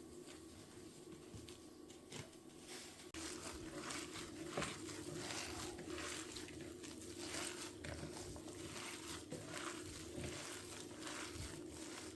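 Household handling sounds: scattered light clicks, taps and rustling over a steady low hum, busier after an abrupt break about three seconds in.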